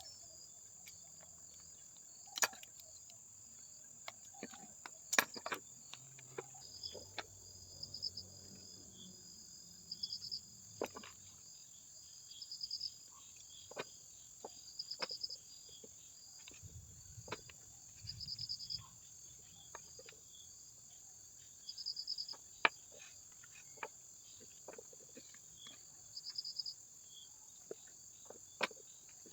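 Insects chirping: a steady high-pitched drone with a pulsed chirp repeating about every two seconds. Scattered light clicks and taps sound over it, the sharpest about five seconds in and again past the twenty-second mark.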